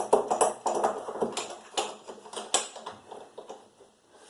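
Irregular metallic clicks and taps of a wrench working a corroded, stuck water heater element nut back and forth, busiest in the first second or so and thinning out toward the end.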